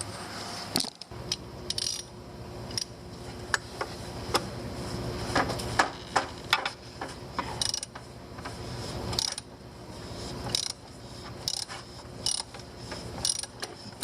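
Hand ratchet wrench clicking in quick repeated strokes as fasteners are worked, with scattered sharp metallic clinks.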